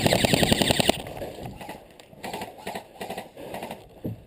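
Airsoft rifle firing a rapid full-auto burst of about a dozen shots a second, which stops about a second in. Softer scattered knocks and rustling follow, with one short thump near the end.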